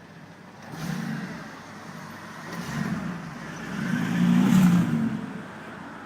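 A V8 sports car engine revving in three surges, about a second in, about three seconds in and loudest at around four and a half seconds, easing off between each.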